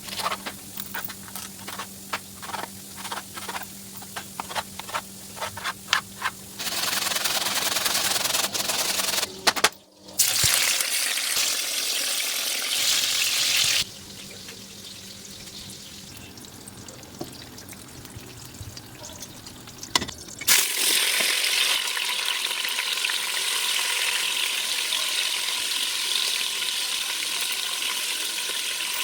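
Food sizzling as it fries in hot oil, with sharp clicks and scrapes of a utensil in the first few seconds. The sizzle drops abruptly to a quieter level about halfway, then comes back loud and steady.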